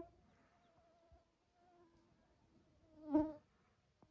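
A flying insect buzzing close to the microphone. Its thin whine fades in and out as it moves, and it is loudest as it passes about three seconds in.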